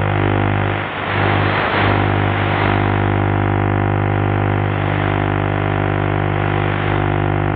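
Distant Band I TV station's vision carrier received on channel E4 by trans-equatorial skip and demodulated as sound: a steady droning buzz made of many even tones, the picture signal's sync pulses heard as audio. A rush of hiss washes over it about a second in.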